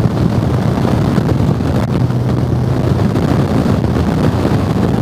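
Wind rushing and buffeting on a helmet-mounted microphone while riding a motorcycle, with the engine's steady low drone underneath that fades about three and a half seconds in.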